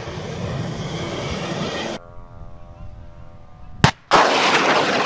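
Stinger missile rocket motor rushing away after launch; it cuts off abruptly about two seconds in. A quieter steady hum follows, then a sharp crack near four seconds in as another Stinger is shoulder-launched, and the loud rush of its motor.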